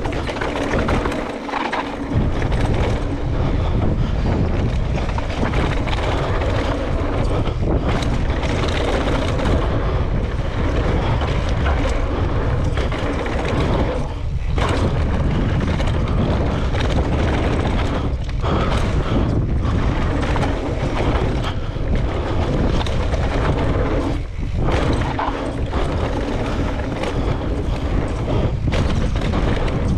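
Wind rushing across a helmet camera's microphone, with a steady low rumble, as a mountain bike rolls fast down a dry dirt trail. It dips briefly a few times as the riding eases.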